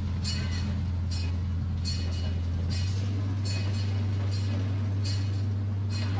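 Miniature zoo train running: a steady low drone from the locomotive, with a short metallic click about every 0.8 seconds from the wheels on the track.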